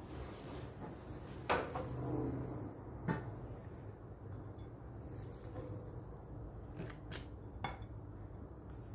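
Metal ice cream scoop clinking against a glass mixing bowl, about five short sharp clicks spread out, the last three close together near the end, over a low steady hum.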